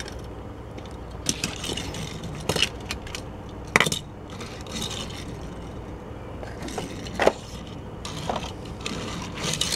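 Hot Wheels die-cast toy car being handled, set down and pushed across a wooden tabletop: a few light clicks and knocks with soft scraping between them, the sharpest about four seconds in.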